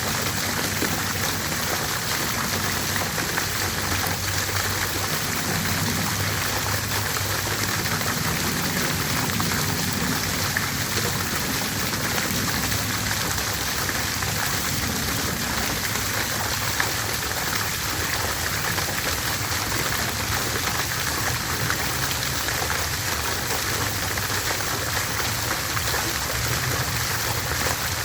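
Water fountain running, its falling water splashing steadily.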